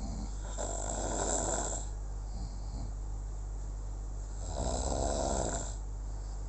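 Snoring: two long snores about four seconds apart, each followed by a shorter, softer breath.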